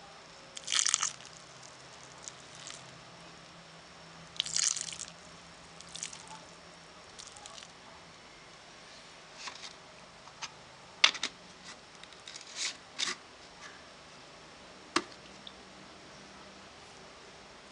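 Liquid poured from a plastic jar, splashing in short bursts onto a potted plant's leaves and soil. Later come sharp plastic clicks and knocks as the jar is set down and its screw lid put on.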